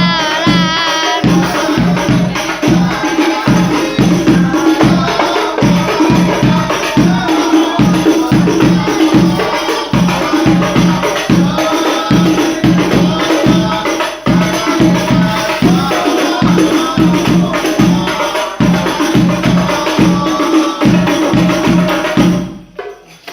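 Sholawat devotional music: hand drums with jingles beating a steady, even rhythm under singing voices, stopping shortly before the end.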